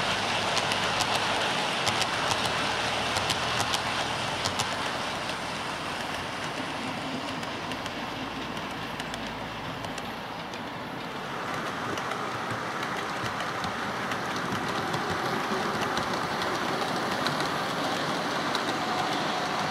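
OO-gauge model freight train of bogie hopper wagons running along the track: a steady rolling hiss of small wheels on rail with quick clicks over the rail joints. It eases off about halfway through and builds again as the wagons pass once more.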